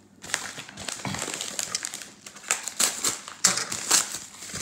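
Crinkling and rustling of a cardboard mailer being handled and opened, irregular scrapes and crackles with a few sharper ones near the end.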